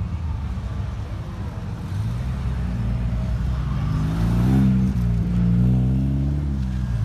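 Car engine running with a deep rumble and revving up twice, rising in pitch to a peak about four and a half seconds in, dipping, then climbing and easing off again near the end.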